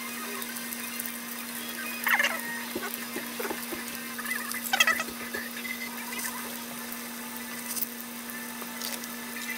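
A battered dandelion fritter deep-frying in a saucepan of hot oil: a steady sizzle and bubbling over a constant low hum. Two brief, louder, higher sounds cut in about two and five seconds in.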